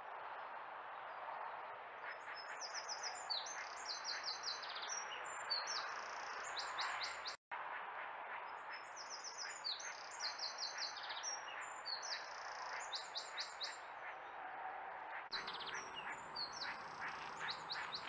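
A songbird singing repeated phrases of fast, high notes, each phrase a few seconds long, over a steady hum of road traffic.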